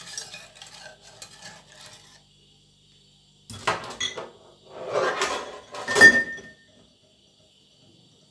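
Wire whisk stirring milk in an enamel pot to dissolve the sugar, a light rapid scraping and clinking. After a short pause come three loud clattering knocks of metal kitchenware about a second apart, the last one ringing briefly.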